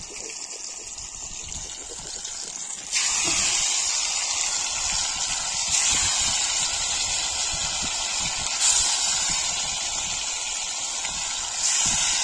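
Masala-coated chicken pieces deep-frying in hot oil in a kadai, a steady sizzle that jumps louder about three seconds in and surges a few more times.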